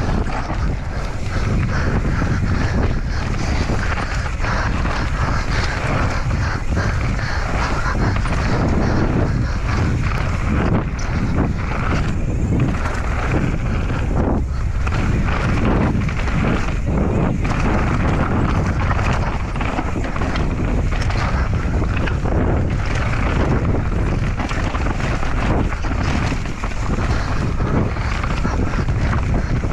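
Mountain bike ridden fast down a dirt trail, heard from a rider-mounted camera. Wind rushes over the microphone and the tyres rumble, with frequent short knocks and rattles from the bike over rough ground.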